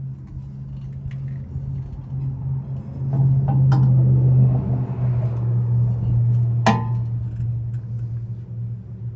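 Background music with a steady low hum that swells about three seconds in. Two sharp knocks cut through it, the second, about two-thirds through, ringing briefly.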